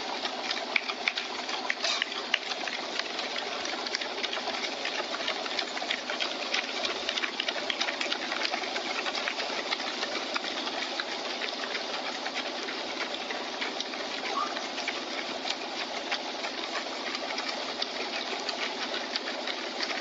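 Footsteps of a large pack of runners on an asphalt road: many shoes striking the pavement at once, a dense, steady stream of quick overlapping taps.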